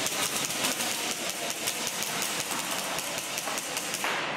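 Airsoft electric rifle firing a rapid string of shots, a fast run of sharp cracks that stops about four seconds in.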